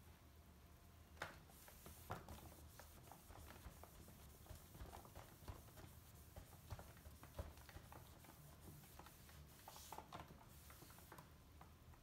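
Faint rubbing and rustling of a microfiber cloth wiped over an LCD monitor screen, with scattered soft taps, over a low steady room hum.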